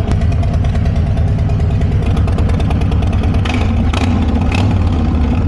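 A Harley-Davidson Street Glide's Milwaukee-Eight V-twin idling steadily with its slip-on mufflers removed, running open through the bare head pipes and "unnecessarily loud". Three sharper cracks come through about three and a half to four and a half seconds in.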